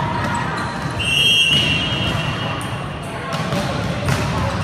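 Indoor volleyball game: a referee's whistle blows once, about a second in, held for about half a second. Two sharp ball smacks follow later, over the chatter of players and spectators.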